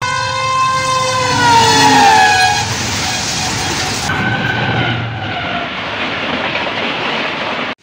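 Diesel locomotive horn blowing as the train passes, its pitch falling over about two and a half seconds. After a cut, a shorter horn note falls away over the rumble of passenger coaches running past.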